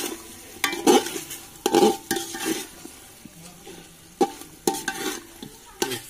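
Metal ladle scraping and knocking against an aluminium pot while chicken curry is stirred in thick masala: about eight irregular strokes, each leaving the pot ringing briefly, with a quieter pause in the middle. A faint frying sizzle runs underneath.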